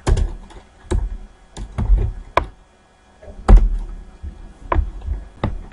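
Keystrokes on a computer keyboard: about a dozen irregular clicks, each with a dull thud, in short runs with a brief pause about halfway through.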